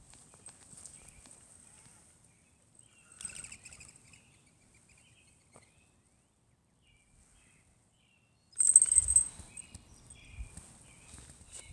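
Quiet outdoor street ambience with a thin steady high tone and faint short bird chirps now and then. A brief loud rustling thump about nine seconds in.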